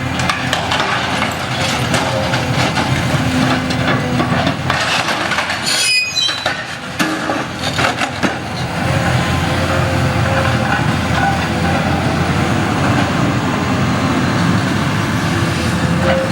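Heavy tracked construction machine at work: a steady engine rumble under rattling, clanking steel, with a brief high squeal about six seconds in.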